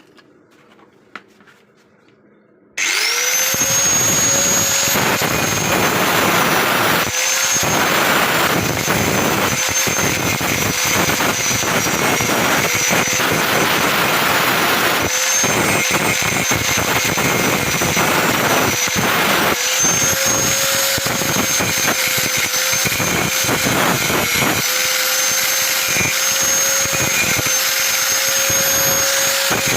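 Angle grinder switched on about three seconds in, spinning up quickly and then running steadily with many brief dips as it bears on the work, grinding out a fillet weld for repair. A few small clicks come before it starts.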